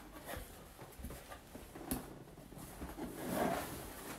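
Cardboard shipping box being handled and opened by hand: soft scraping of cardboard with a few light knocks, and a denser rustle of the flaps near the end.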